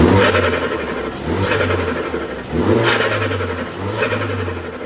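Mini F56 John Cooper Works 2.0-litre turbocharged four-cylinder engine, fitted with an aftermarket induction kit, being blipped: revs rise and fall about four times in quick succession, with loud intake noise on each blip.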